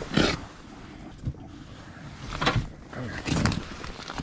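Short bursts of rustling handling noise close to the microphone, clothing and hands moving, about four times, the loudest right at the start.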